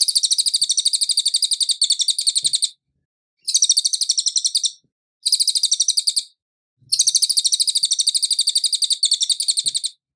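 Cililin bird singing: fast, even trills of sharp, high notes in four runs separated by short pauses, the first and last runs the longest.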